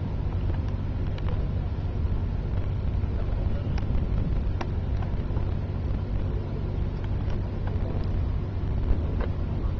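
A boat engine running steadily with an even low drone, with a few faint short high chirps here and there.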